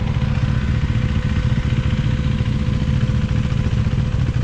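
Motorcycle engine running steadily at low revs as the bike rolls slowly and pulls up.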